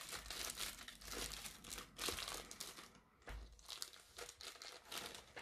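Thin clear plastic wrap crinkling as it is handled and slid off a new smartphone: dense crackling for the first three seconds or so, then sparser, quieter crinkles.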